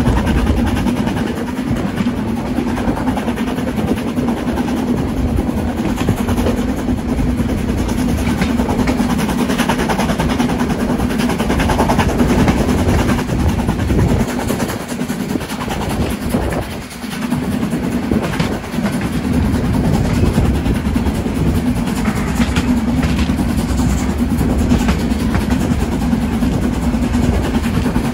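A train running: a steady, loud rumble and rattle with a constant low hum, dipping briefly about halfway through.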